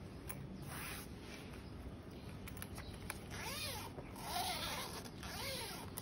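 Clear plastic wrapping sheet crinkling as hands move over it. In the second half, three short calls rise and fall in pitch.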